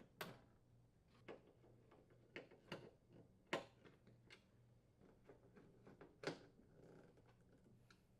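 Faint, scattered clicks and light knocks, about half a dozen, from the metal oven door panels and screws being handled as the inner and outer door assemblies are fitted back together.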